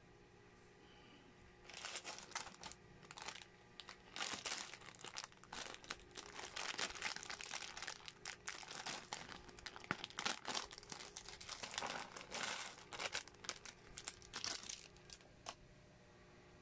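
A clear plastic bag of Lego bricks crinkling as it is handled and shaken out, with small plastic bricks clicking and clattering onto a tabletop. It starts about two seconds in and stops near the end.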